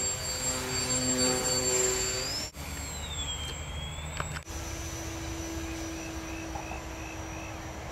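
Small electric motors and propellers of Hobby City Piaget RC foam planes running, a thin buzzing whine whose pitch wavers with the throttle. The sound changes abruptly about two and a half and four and a half seconds in, then holds a steadier whine.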